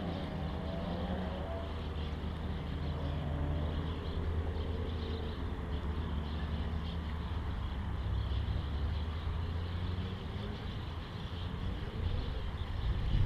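Steady drone of motor-vehicle engines, with the engine pitch rising and falling near the start and again near the end.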